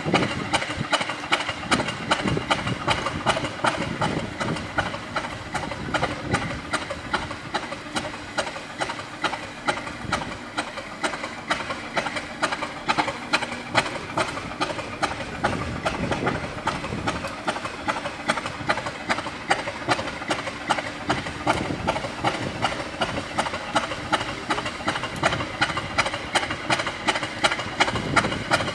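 English Electric 16-cylinder diesel engine of a Class 50 locomotive running while stationary, with an even pulsing beat about four times a second. The engine has just been cold-started in sub-zero weather and is still cold, smoking heavily.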